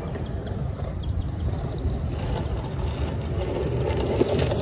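Wind buffeting an outdoor microphone: an irregular low rumble with a faint hiss over it.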